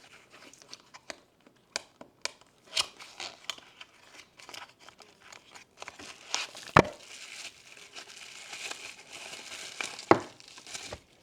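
Plastic packaging crinkling and tearing as a LiPo battery pack is unwrapped by hand, with scattered clicks and two sharp knocks, the louder about seven seconds in.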